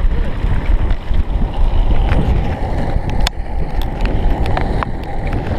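Longboard wheels rolling on asphalt, heard from a camera mounted on the board: a loud, steady rumble with wind buffeting the microphone and a few sharp clicks now and then.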